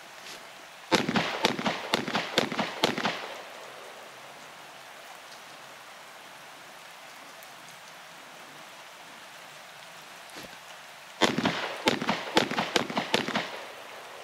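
Two rapid strings of gunshots, each about eight shots over two seconds, the first about a second in and the second near the end, over a steady hiss.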